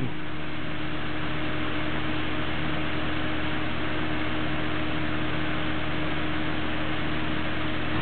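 A microwave oven running with a steady hum, mixed with the even whoosh of an air-circulator fan blowing. No change in level and no crackles or bangs.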